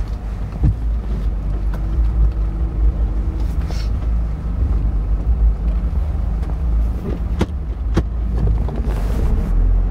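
Jeep Wrangler JK Unlimited driving, heard from inside the cabin: a steady low rumble of engine and road noise, with a few short knocks in the last few seconds.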